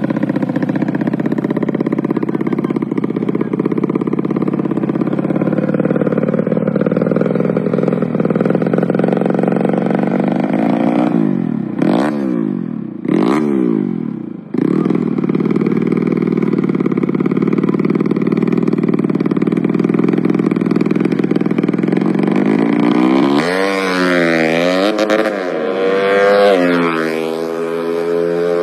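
Suzuki Smash motorcycle's bored-up single-cylinder four-stroke engine idling steadily, blipped twice in quick succession about halfway through, then revved up and down several times near the end.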